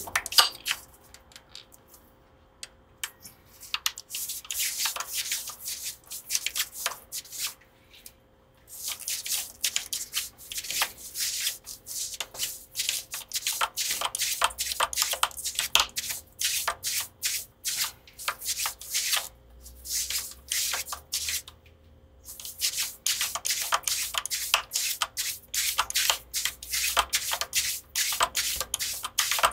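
Hand string winder cranking the tuning pegs of a Gibson Les Paul to wind on a new string, with the string rubbing on the headstock: runs of fast clicking and scraping, broken by a few short pauses.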